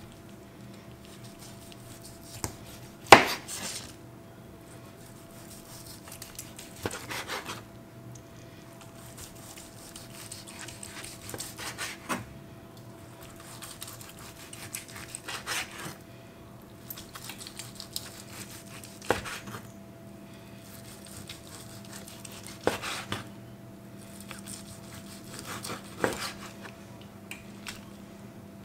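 Knife carving a roast pork joint on a plastic chopping board: bouts of slicing with sharp knocks of the blade and carving fork against the board every few seconds, the loudest about three seconds in. A faint steady hum lies underneath.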